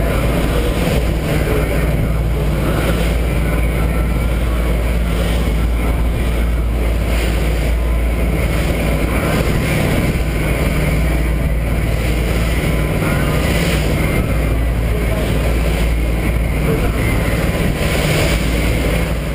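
Party boat's engines running steadily at cruising speed, with a constant low hum, mixed with wind and water rushing along the hull.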